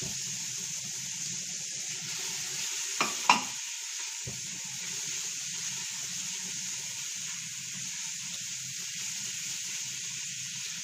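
Freshly grated carrots sizzling in hot oil with sautéed onion and garlic in a stainless steel pot, stirred with a wooden spoon. A brief sharp sound comes about three seconds in.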